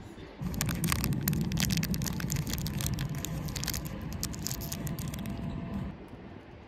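Crinkling and crackling of a Cadbury Freddo chocolate bar's plastic wrapper as it is torn open by hand, a dense run of crackles over a low rumble. It starts about half a second in and stops about a second before the end.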